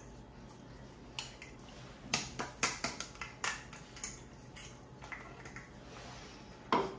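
Spoon clinking and tapping against a bowl as ground spice masala is emptied into the stock: scattered sharp taps, with a quick run of them about two to three and a half seconds in and a louder one near the end.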